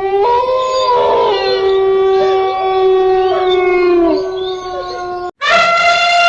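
Animal howling in long, steady drawn-out calls, with a second voice gliding above the first in the opening seconds; after a brief break a new, higher call begins near the end.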